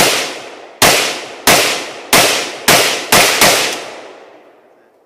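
AK-47 rifle firing seven single shots in quick succession, roughly one every half second with the last few closer together, each shot trailing off in echo.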